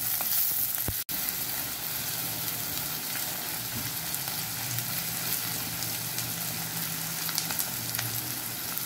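Sliced onions deep-frying in hot oil in a kadai, still pale early in the frying, sizzling steadily while a slotted metal spatula stirs them through the oil. The sound drops out for an instant about a second in.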